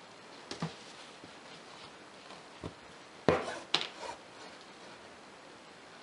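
Handling noises from an embroidery frame and its canvas: a few scattered light taps, then a sharp knock about three seconds in followed by two or three smaller knocks as the frame is picked up and tilted.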